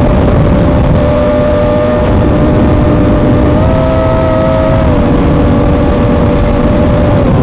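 Brushless motors of an FPV racing quadcopter whining at a fairly steady throttle, the pitch stepping up slightly midway and settling back, over a loud, rough hiss.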